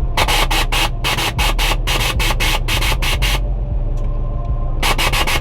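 Nissan 350Z's engine idling as a steady low rumble, under a fast run of rasping strokes, about four a second, that stop for over a second and then start again briefly near the end.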